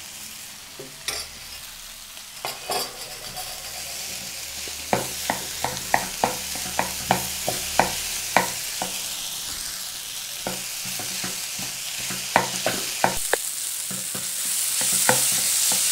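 Wooden spatula stirring grated boiled potato, green peas and chopped vegetables in a hot non-stick kadai over a steady frying sizzle, with a run of quick knocks of the spatula against the pan from about five seconds in. The sizzle grows louder near the end.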